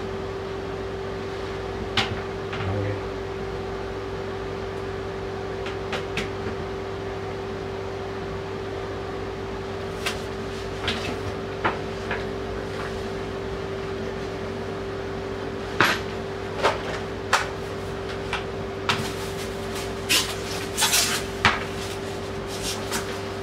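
Hard plastic clicks and knocks from a non-electric bidet toilet seat being handled and fitted onto a toilet bowl. The knocks are scattered at first and come thick and fast from about sixteen seconds in, over a steady low hum.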